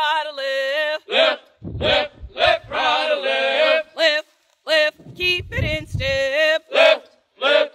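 Military running cadence: male voices chanting a marching call in a steady rhythm, each line called and then repeated by a group. There are two short stretches of low rumble beneath the voices, about two and five seconds in.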